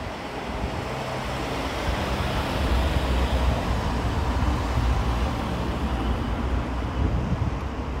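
Cars passing on a town street: a steady traffic noise with an uneven low rumble.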